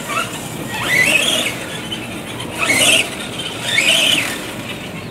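Electric RC truck motor whining in three bursts of throttle, its pitch rising and falling each time.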